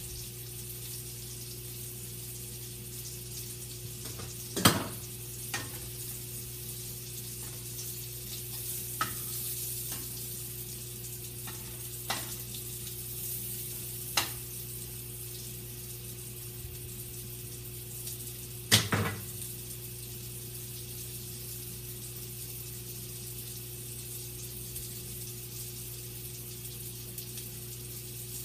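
Sausage frying in a pan, with a steady sizzle. A spatula knocks against the pan about six times, loudest about five seconds in and again near nineteen seconds.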